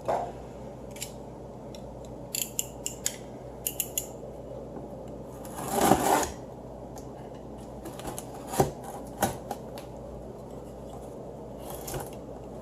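Cardboard box being cut open by hand: scattered small clicks and taps, a half-second scrape about six seconds in, and a few sharper knocks near the end.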